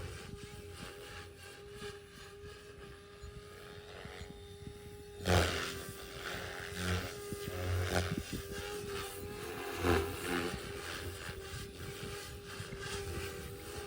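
Electric RC helicopter, a Protos 380, running with a steady whine. A few louder gusty thumps come over it, the largest about five seconds in.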